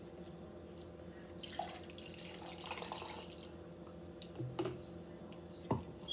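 Water poured from a clear plastic bottle into a plastic cup, a splashing pour from about one and a half to three and a half seconds in. Two sharp knocks follow near the end, the second the loudest sound.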